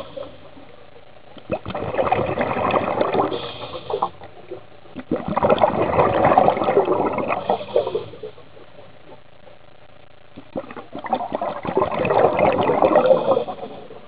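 Bubbling and gurgling underwater in three bursts of about three seconds each, coming back roughly every five seconds with quieter breaks between them, in the rhythm of a scuba diver's breaths: exhaled bubbles from the diver's regulator.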